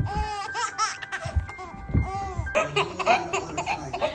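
A baby laughing in a run of rising-and-falling giggles over light background music, opening with a sharp knock; about two and a half seconds in, the sound changes to busier voices.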